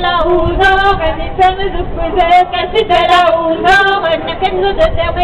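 Live Breton folk music for dancing, led by singing voices in a quick, shifting melody, with sharp taps throughout.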